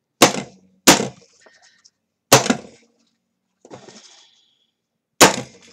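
Desk stapler punching staples through a stack of printer paper: four sharp clacks, the first two close together near the start, a third a little past two seconds and a fourth near the end, with a faint rustle of paper between the last two.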